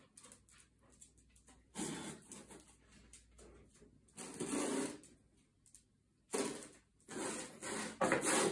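A dog searching cardboard scent boxes on a tiled floor, with short scuffing noises every second or two. Near the end it paws at one box to mark the scent.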